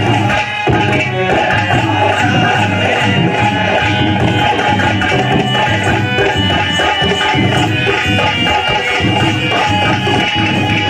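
Indian folk music played live, with hand drums keeping a steady beat under a dense mix of instruments.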